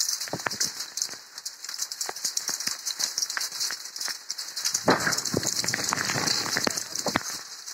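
Rain falling, heard as dense, irregular ticks of drops, with a louder rush of noise lasting about two seconds from about five seconds in.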